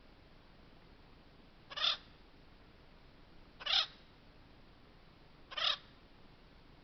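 Acorn woodpecker calling: three short calls, evenly spaced about two seconds apart.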